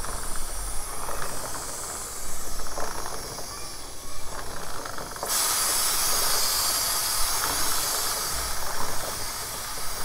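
Aerosol can of Motul C1 chain cleaner spraying onto a motorcycle drive chain to degrease it: a continuous hiss that gets louder and brighter about five seconds in.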